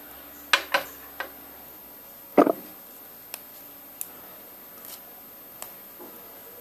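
Sharp clicks and knocks of a ceramic plate being handled and set down on a hard countertop, the loudest knock about two and a half seconds in, followed by a few light ticks.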